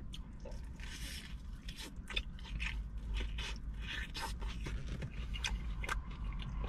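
Close-miked eating of sweet-and-spicy chicken: a bite with a burst of crunching about a second in, then chewing heard as a run of sharp mouth clicks.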